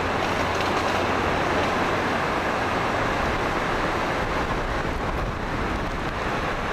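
Hurricane-force wind blowing, a steady, dense rushing noise with a low rumble of wind buffeting the microphone.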